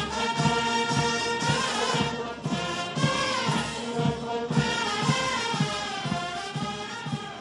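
Military band music: sustained wind instruments over a steady drum beat of about two strokes a second.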